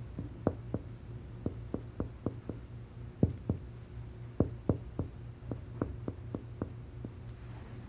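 Chest percussion: a finger striking a finger laid flat on the right front of the chest, a series of short sharp taps, several a second in short runs. The examiner is percussing downward from resonant lung toward liver dullness to find the level of the right diaphragm.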